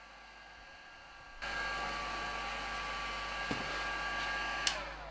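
Handheld heat gun switched on about a second and a half in, blowing steadily with a whining motor tone. It is switched off with a click near the end, and the motor winds down.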